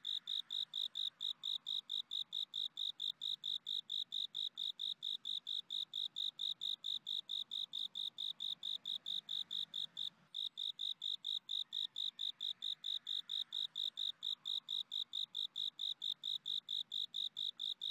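Cricket chirping in a steady, even rhythm of short high-pitched pulses, about four and a half a second, with one brief break about ten seconds in.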